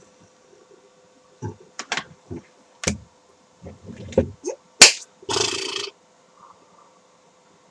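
A run of short slaps and knocks, the loudest a sharp click about five seconds in, followed by a brief burst of rustling noise lasting about half a second.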